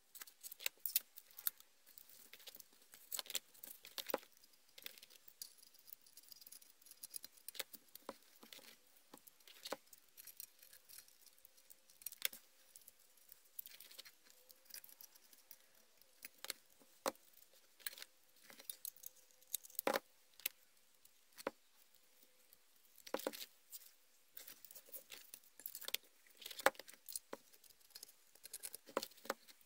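Masking tape being pulled from the roll, pressed and crinkled onto a metal hole punch and snipped with scissors: irregular small crackles and clicks.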